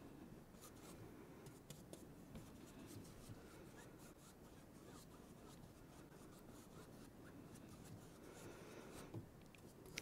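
Faint brushing of a paintbrush working acrylic paint across a stretched canvas, with a few light ticks.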